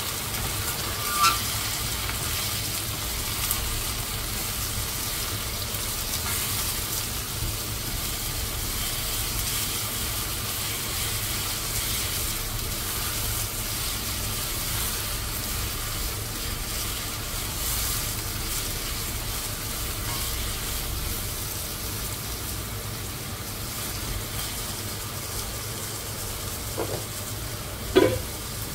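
Food sizzling as it fries in oil in a pan, a steady hiss, with a couple of light knocks near the end.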